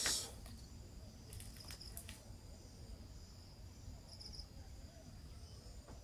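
Faint, steady high-pitched trill of a chirping insect, cricket-like, with a few faint ticks about one to two seconds in.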